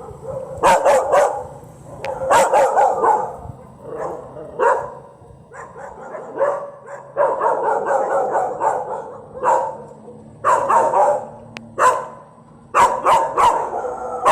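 A dog barking repeatedly in short, sharp barks, coming in irregular bursts of several barks with brief gaps between.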